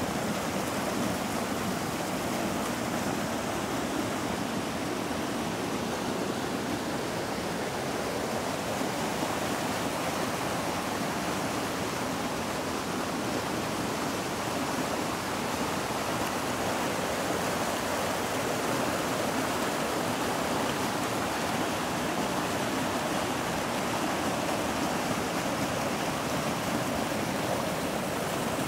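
Water rushing steadily down a small rocky cascade in a stream channel, an even, unbroken noise.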